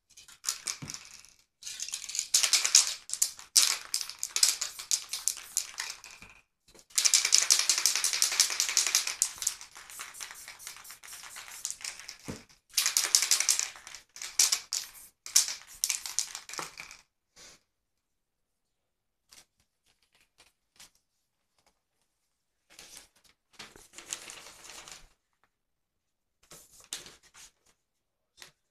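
Aerosol spray-paint cans hissing in long bursts of several seconds, each starting and stopping abruptly, through the first half. Later come only a few short, quieter bursts.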